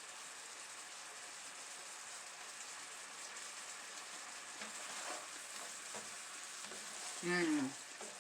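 Banana syrup topping sizzling in a hot pan, a steady hiss. About seven seconds in, a short falling hum from a voice.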